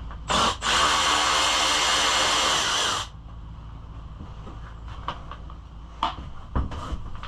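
A handheld power driver gives a short blip, then runs steadily for about two and a half seconds and stops sharply, backing out a bolt that holds the pit bike's plastics. Light clicks and knocks of parts being handled follow.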